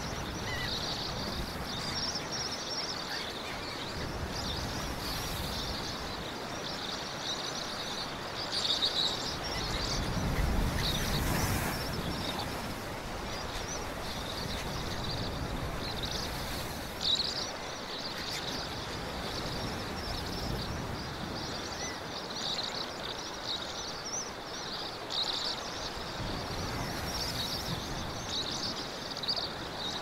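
Outdoor nature ambience: a continuous high chirping chorus, with a low rush under it that swells briefly about ten seconds in.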